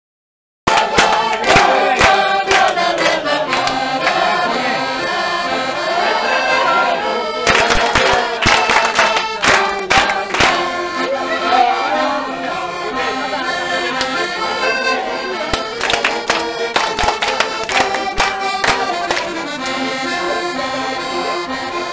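Accordion music, starting abruptly about half a second in, with a group of people clapping along.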